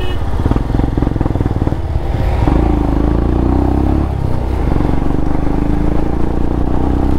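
Royal Enfield Himalayan's 411 cc single-cylinder engine pulling under throttle while riding. Its pitch climbs, dips briefly about four seconds in, then climbs again, over a low rumble of wind and road noise.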